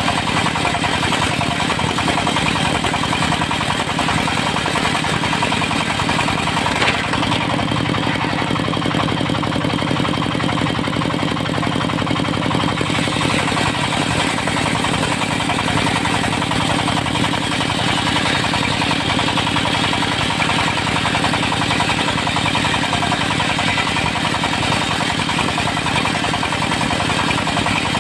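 Engine-driven portable circular sawmill running steadily, its engine's note growing stronger about seven seconds in.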